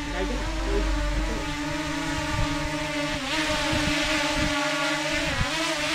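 DJI Mini 2 drone's propellers and motors whining steadily in flight, the pitch wavering slightly as it manoeuvres. About three seconds in, a louder hiss of rushing air joins the whine as the drone hovers close above the grass.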